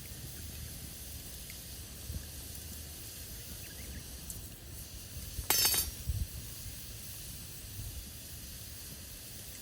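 Campfire burning with a steady hiss and a few small crackles, and one loud sharp crackle about halfway through, followed by a smaller one.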